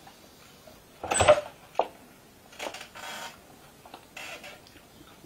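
Clatter and knocks: a loud, ringing clank about a second in, a sharp knock just after it, then softer scraping and rustling noises.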